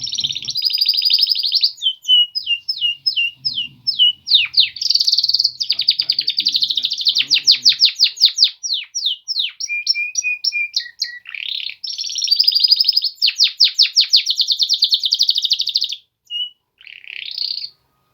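Male canary singing a long, high-pitched song of fast trills and runs of quickly repeated sweeping notes. The song stops about sixteen seconds in, followed by a couple of short calls.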